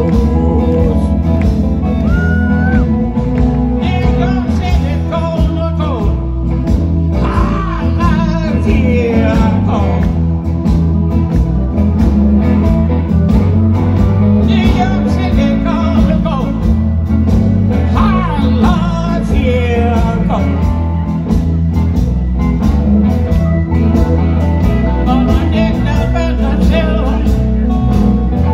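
Live blues band playing with electric guitars, and a man singing into a microphone over the band, heard through the stage PA.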